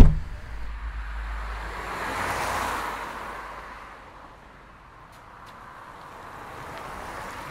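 A car passing by outside, a rushing noise with a low rumble that swells to its loudest about two and a half seconds in and fades away, then another begins to build near the end. A sharp knock sounds right at the start.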